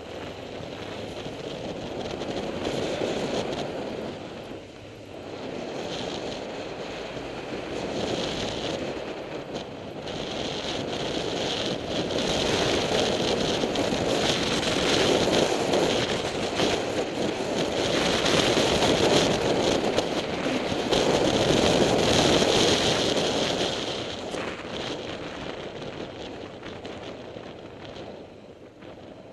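Honda CB500 motorcycle under way, its engine running beneath a steady rush of wind over the camera's microphone. The rush swells as speed builds, is loudest about two-thirds of the way through, and eases off near the end.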